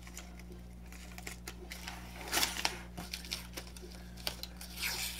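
Protective paper backing being peeled off an acrylic quilting ruler: crinkling, tearing rustles of the paper, loudest about halfway through and again near the end.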